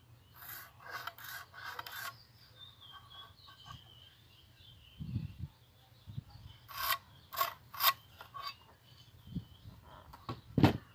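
A ballpoint pen scratching along the edge of an aluminium square as a 45° line is marked on a pine board, in several short scratchy strokes, with the square rubbing on the wood; a single knock near the end.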